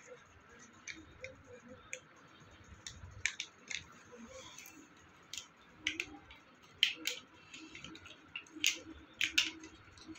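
A small plastic spread packet being torn and peeled open by hand: scattered sharp crinkles and snaps, coming thicker and louder in the second half.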